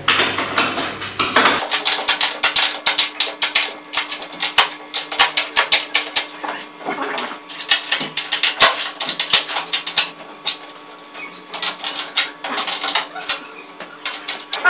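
A quick, irregular run of sharp metallic clicks and taps over a faint steady hum. The clicks come thick for the first several seconds, thin out around ten seconds in, then pick up again near the end.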